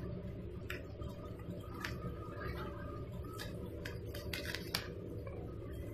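Scissors snipping at packing tape and plastic wrap on a parcel: a few scattered short snips over a steady low background hum.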